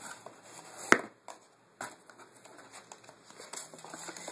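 Cardboard packaging being handled: light scrapes, rustles and clicks, with one sharp knock about a second in.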